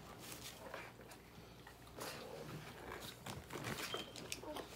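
A person biting into and chewing a Whopper burger close to the microphone: a run of small mouth clicks and smacks.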